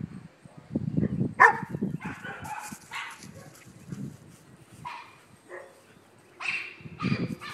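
German Shepherd puppy giving several short, separate barks, nervous of a plant pot moving in the wind, with gusts of wind buffeting the microphone.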